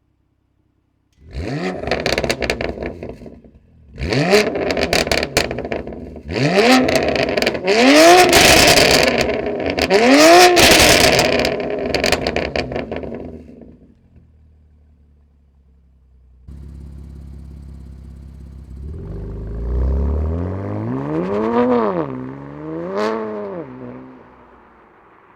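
BMW M2 Competition's twin-turbo straight-six, fitted with an aftermarket Milltek exhaust, revved while standing. There are five sharp rises and falls in pitch over the first dozen seconds. After a short gap it is heard running again, building into two more revs near the end.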